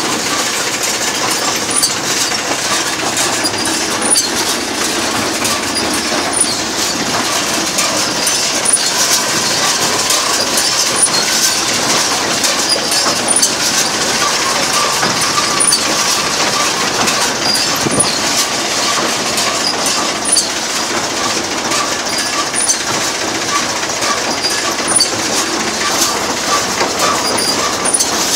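Claas Bubi S small square baler running empty on its first test run after an overhaul, its pickup and drive mechanism clattering and rattling steadily with a stream of small metallic clicks.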